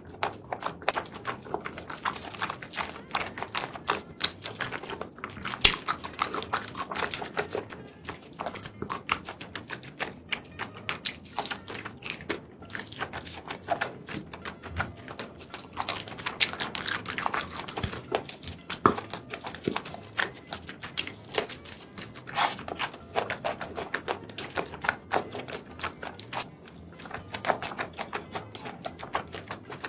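Close-miked eating sounds: wet chewing and smacking of seafood in thick sauce, with many quick clicks and squelches as pieces of shellfish and octopus are pulled apart by hand.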